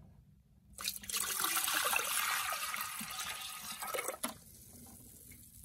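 Water poured from a plastic bucket into a porcelain RV toilet bowl (Microphor LF-220), splashing and swirling for about three seconds before tapering off, as the closed flapper is tested for a seal.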